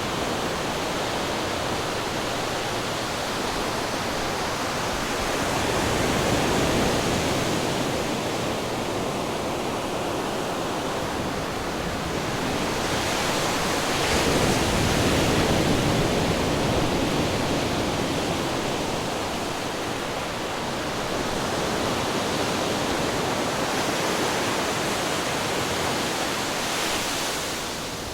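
Ocean waves breaking on rocks: a continuous rush of surf that swells louder about six seconds in and again around fourteen seconds in.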